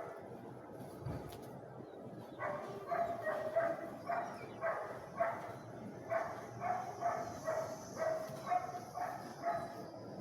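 A dog barking over and over, about two short barks a second, starting a couple of seconds in.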